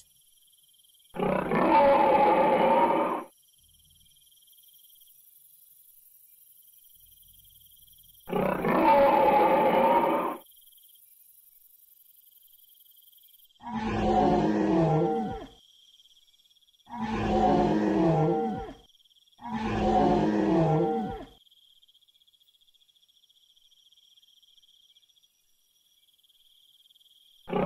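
Dubbed-in dinosaur roar sound effects: five roars of about two seconds each. Two come well apart, then three follow in quick succession near the middle, and these last three end in a falling pitch.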